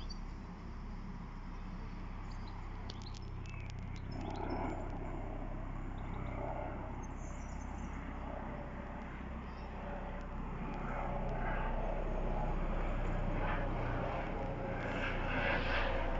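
ADAC rescue helicopter flying past overhead: a steady low rotor and engine drone that grows gradually louder over the second half.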